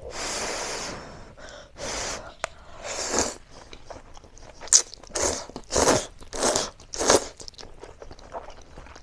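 A person slurping instant noodles and chewing: a long slurp at the start, then a run of short, quick slurps in the middle.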